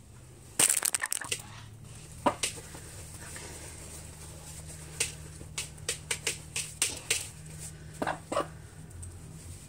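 Short clicks and taps from hands adjusting a fabric chicken saddle on a hen, with a loud quick cluster about half a second in and scattered single clicks after, over a steady low hum.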